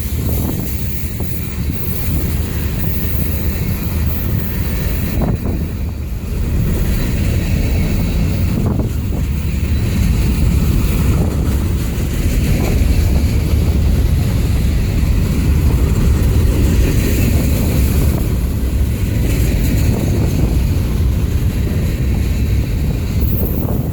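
Loud, steady low rumble with wind buffeting the phone's microphone.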